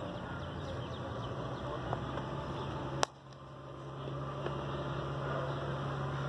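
Steady low outdoor background hum. About three seconds in there is one sharp click, after which the hum drops away and slowly builds back.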